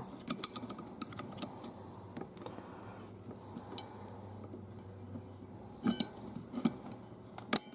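Metal parts of a 700R4 automatic transmission's forward clutch assembly clinking and tapping as they are handled and taken apart. There is a quick run of small clicks at the start and a few louder knocks near the end.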